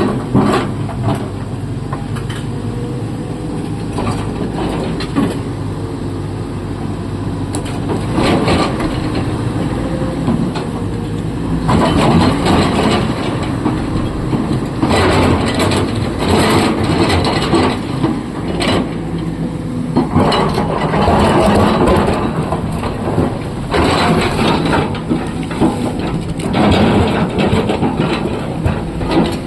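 Diesel engine of a SANY excavator running under load, with rock crunching and clattering in repeated bursts every few seconds as it digs and loads stone.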